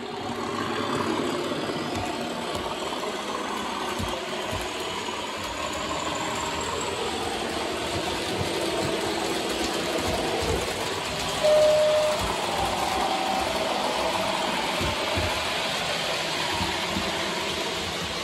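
OO-gauge model trains running around a layout: a steady rattle and hum of wheels on the track and small motors, with scattered clicks. A short single-pitch tone sounds about eleven and a half seconds in.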